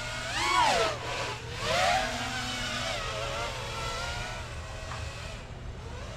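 FPV freestyle quadcopter's brushless motors and props whining in flight, the pitch rising and falling as the throttle is worked, with louder surges about half a second and two seconds in.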